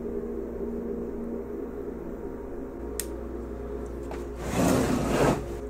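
A steady hum with a single sharp click about three seconds in: the metal toggle switch snapping off, which cuts power to the meter. Near the end comes a loud rushing rustle of handling noise.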